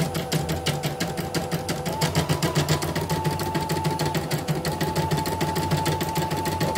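CNY portable embroidery machine stitching at a rapid, even rhythm, with a steady whine that shifts in pitch a couple of times. It is running smoothly on a new motor and power supply, its unstable-speed fault cured.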